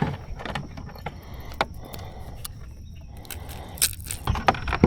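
Irregular light clicks and rattles of fishing tackle being handled in a kayak, with a louder knock near the end, over a low steady rumble.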